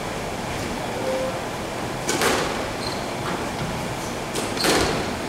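Two sharp knocks echoing around a squash court, about two and a half seconds apart, over a steady hall hiss, with a few brief high squeaks like court shoes on the wooden floor.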